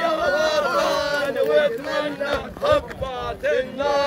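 Protesters' voices chanting and shouting slogans in Arabic, one raised, high-pitched voice standing out over the crowd.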